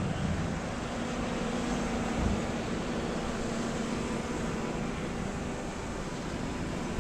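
Steady outdoor noise of wind and distant road traffic, with a faint low steady hum underneath.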